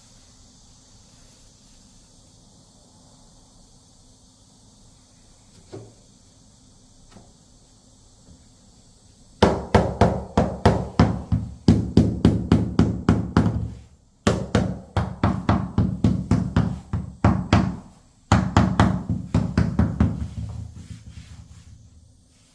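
Rapid hammer taps knocking a floor plank into place, about three strikes a second in three runs with short pauses, the last run fading out.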